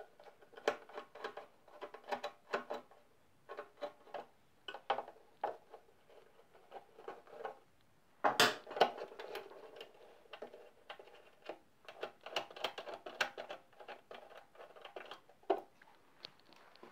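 Irregular light metallic clicks and clinks of hand work with a screwdriver, undoing screws on a moped's bodywork, with a louder knock about halfway through.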